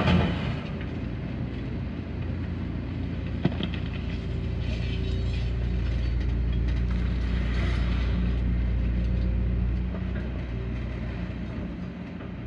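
Heavy diesel machinery running with a steady low rumble, with a sharp knock about three and a half seconds in. The rumble grows louder in the middle and eases off near the end.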